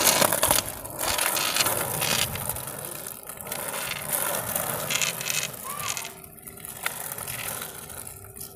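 Skateboard wheels rolling over rough concrete: a steady rattling roll that eases off after about six seconds.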